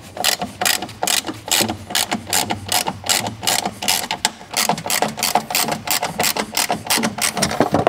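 Hand ratchet with a 10 mm socket clicking in a quick, steady run, about four clicks a second, as it works a screw loose.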